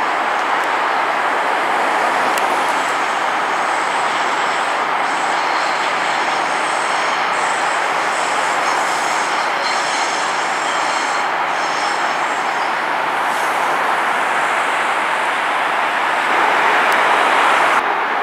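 Electric commuter trains rumbling steadily through a rail yard, blended with traffic noise, with faint high-pitched tones coming and going in the middle. The sound grows a little louder near the end, then cuts off abruptly.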